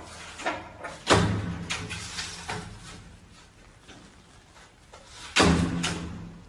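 Two loud thumps about four seconds apart, each dying away over a second or so, with a few lighter knocks between them.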